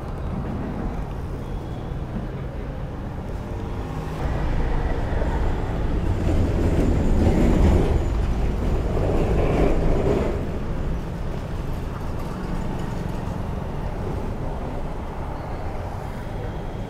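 Steady low rumble of motor traffic, with a vehicle passing close by: it grows louder about four seconds in, peaks around eight to ten seconds, and fades back to the background rumble.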